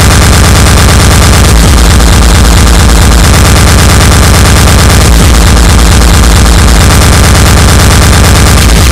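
Speedcore music: distorted kick drums hammering at an extreme tempo, so fast they run together like machine-gun fire, under a loud, dense wall of noise.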